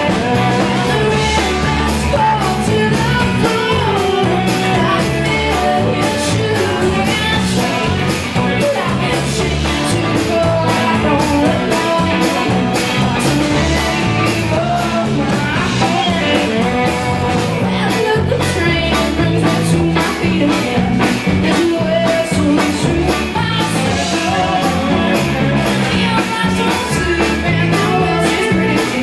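A live rock band playing a song: guitars and bass over a steady drum beat, with a woman singing.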